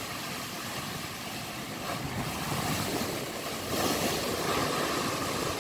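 Surf from rough high-tide waves breaking and washing over a concrete sea wall and its blocks: a steady rush of water that swells louder a little under four seconds in as a wave splashes against the blocks.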